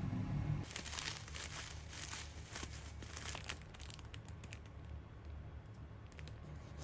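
Plastic packaging crinkling as it is handled and pulled open, with scattered small clicks as it thins out. A low hum cuts off just before it begins.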